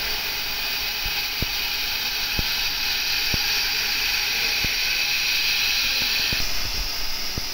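Robot-mounted fiber laser head cutting a metal tube: a steady hiss of assist gas blowing through the cutting nozzle, with faint ticks about once a second. The hiss eases off about six seconds in as the cut ends.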